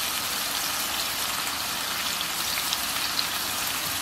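Ground-beef meatballs frying in a skillet over medium heat: a steady sizzle with faint scattered crackles.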